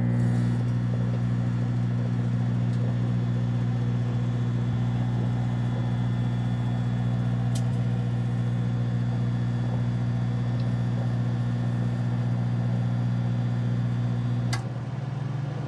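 Galanz retro compact microwave oven running at a reduced power setting: a loud steady electrical hum from the magnetron. About 14.5 seconds in a click sounds and the hum drops to a quieter one as the magnetron cycles off, leaving the fan and turntable running.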